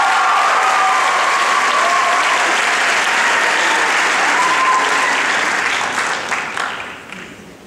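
Audience applauding in a large hall, dying away over the last second or two.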